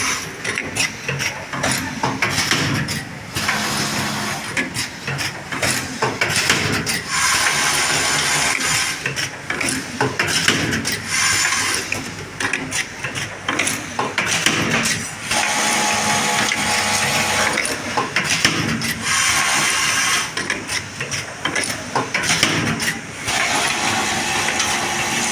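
Electric sewing machine running in runs of a few seconds, with brief slower or quieter spells between them.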